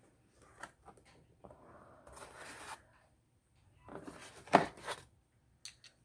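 Packaging being handled while a doll is unwrapped: bursts of rustling and crinkling, with a sharper click about four and a half seconds in and a few small clicks near the end.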